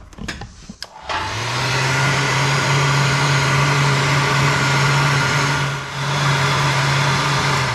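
A motor-driven machine running: a loud, steady whir over a low hum. It spins up about a second in, dips briefly near the end, and winds down as it stops.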